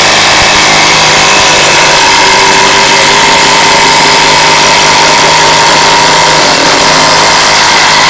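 Ryobi P1870 18V cordless impact driver hammering steadily under load as it drives a long screw into a thick wooden beam. The sound is loud and unbroken.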